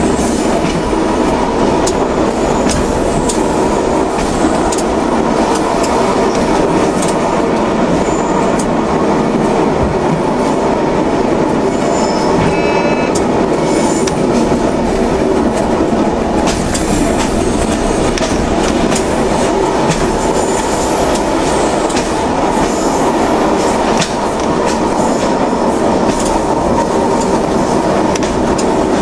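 Regional passenger train running along the track as heard on board: a steady running noise with scattered clicks from the wheels over the rails, and a brief high wheel squeal near the middle.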